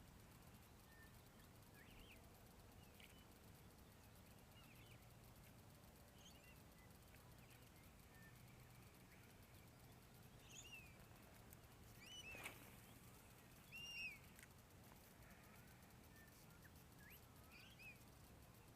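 Faint, scattered bird chirps over near silence, short calls that bend up and down in pitch, with one sharp click about two-thirds of the way through.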